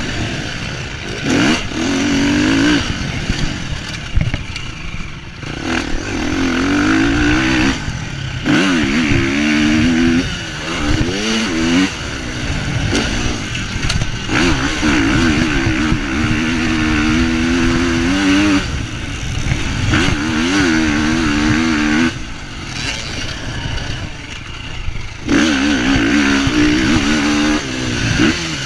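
Motocross bike engine heard close up from on the bike as it is ridden hard around a dirt track: the revs repeatedly climb and fall through the gears, with several brief throttle-off lulls between bursts.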